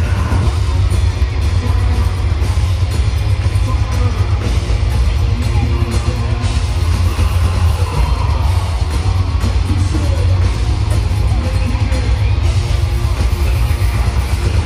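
Heavy metal band playing live in an arena: drum kit and dense, distorted music with a heavy, booming low end.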